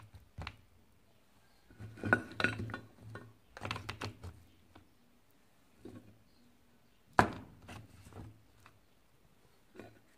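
Pieces of dried salted meat on the bone (gueddid) handled by hand on a plate: scattered crackles, clicks and knocks, the sharpest a single knock about seven seconds in.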